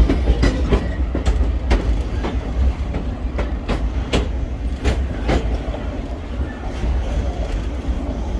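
Railroad car running along jointed track: a steady low rumble with irregular sharp clicks and knocks as the wheels pass rail joints and a switch, loudest about four and five seconds in.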